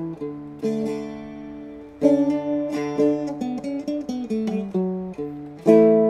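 Seagull Merlin, a four-string mountain-dulcimer-style instrument, plucked and strummed: a melody over ringing drone strings, with a loud strum about two seconds in and another near the end.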